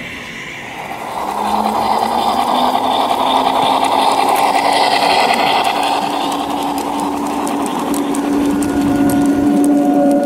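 G-scale model train running past on the garden layout: a steady mechanical whirr of electric motor, gears and wheels on the track, with a hum beneath it. The whirr swells about a second in and holds steady, with faint clicking on the rails.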